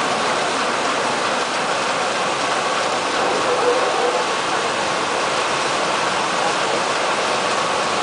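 Tunnel car wash machine running, with its rotating brushes scrubbing a car under water spray: a steady hiss of spraying water with a mechanical whir underneath.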